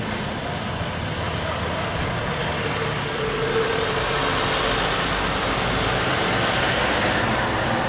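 Garden-waste recycling truck's diesel engine running as the truck drives slowly along the road, growing slightly louder, with a brief whine about three seconds in.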